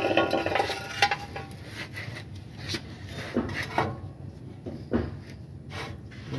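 Metal tools and engine parts being handled: a short clatter of clinks at the start, then a handful of separate knocks and scrapes.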